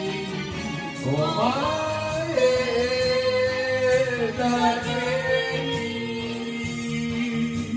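Karaoke: singing into a microphone, amplified over a backing track, with a slide up in pitch about a second in and long held notes.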